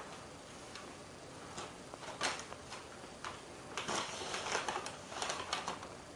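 A paper bag crinkling and rustling in irregular bursts as a cat moves about with the bag over its head. There is a sharp crackle about two seconds in and a busier stretch of crinkling from about four to five and a half seconds in.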